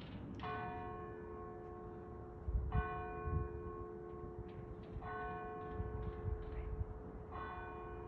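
A bell tolling: four strokes about two and a half seconds apart, each tone ringing on under the next.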